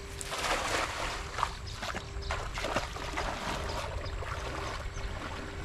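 Cast net landing on pond water: a spattering splash as the spread net and its edge weights strike the surface, about half a second in, trailing off into water sloshing over the next few seconds.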